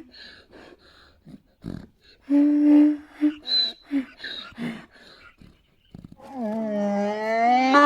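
Donkey braying: a run of short, wheezy gasps and a brief honk, then a long drawn-out call that rises in pitch near the end.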